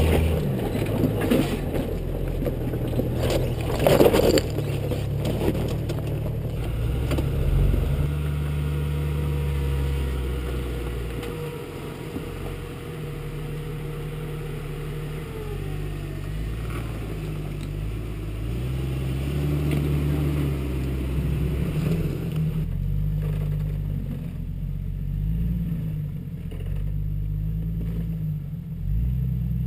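Jeep Cherokee XJ engine running at low revs as the 4x4 crawls over rock ledges, the engine note rising and falling with the throttle. A few knocks and scrapes of tyres and underbody on rock, the loudest about four seconds in.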